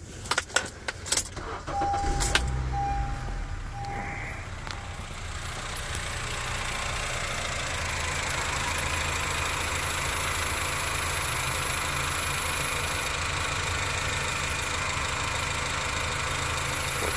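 A few clicks, then a 2012 Honda Civic's four-cylinder engine cranks and starts about two seconds in and settles into a steady idle. From about six seconds on the idle is heard up close under the open hood.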